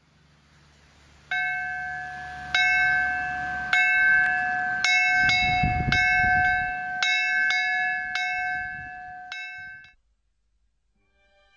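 A single small chapel bell in an open bell gable, rung by hand with a rope: about ten strokes at an uneven pace of roughly one a second, each ringing on into the next, then stopping.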